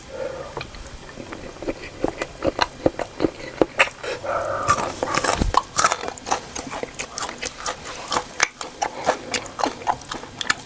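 Close-up chewing and lip smacking of a person eating a mouthful of meatballs and rice, a steady run of short, wet clicks and smacks.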